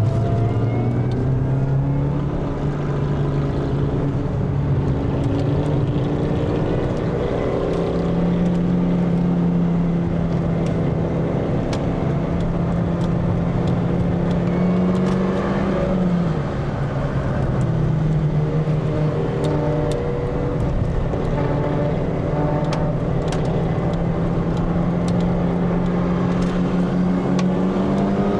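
Supercharged 1.6-litre four-cylinder engine of a 2003 Mini Cooper S (R53) running hard on a race track, heard from inside the cabin. Its pitch climbs under acceleration, holds, dips sharply about halfway through, then climbs again.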